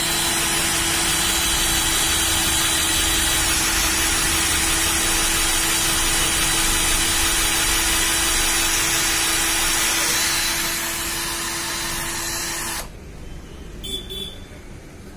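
12 V cordless drill running steadily as its step drill bit cuts into a thin iron plate: a steady hum over a grinding hiss, easing slightly a few seconds before it stops suddenly near the end. The owner says the bit has lost its sharpness, so it cuts slowly.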